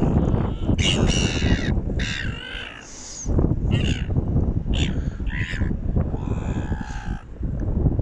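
Red-billed gulls giving a string of harsh squawking calls, about half a dozen, with a longer drawn-out call near the end, as they compete over a scrap of food. Wind rumbles on the microphone underneath.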